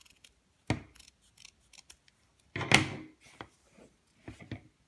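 Scissors cutting through a wide woven elastic band. There is a sharp click about a second in, then one longer, louder cut near the middle, followed by a few lighter clicks of the blades and handling.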